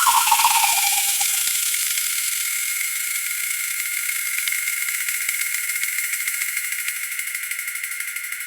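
Grain pouring into a bin: a steady hissing rush of kernels that slowly fades. A brief falling tone sounds in the first second or so.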